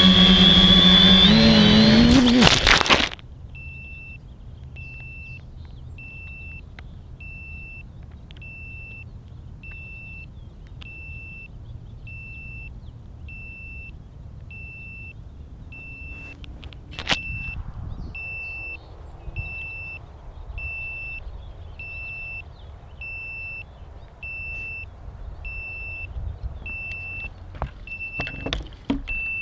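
FPV quadcopter's electric motors whining at speed, then cutting off suddenly about three seconds in as the quad crashes. After that a short high beep repeats steadily about one and a half times a second, with a sharp knock partway through and a few more knocks near the end.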